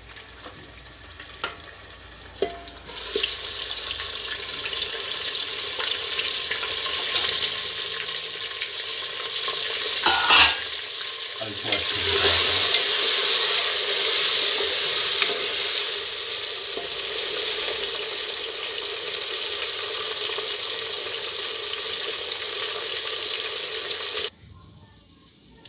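Mutton pieces sizzling as they fry in hot oil in an aluminium pressure-cooker pot, stirred with a wooden spatula. A few light knocks as the meat goes in, then a loud steady sizzle from about three seconds in, with one louder knock of the spatula midway. The sizzle cuts off suddenly near the end.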